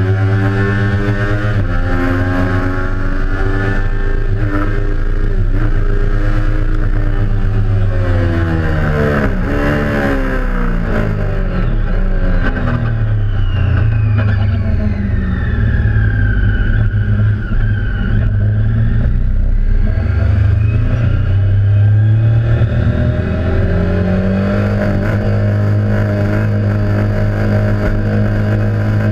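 Triumph sport motorcycle engine heard from on board at speed, revving up and down as the rider works through the gears. The pitch dips sharply about nine seconds in, then climbs again.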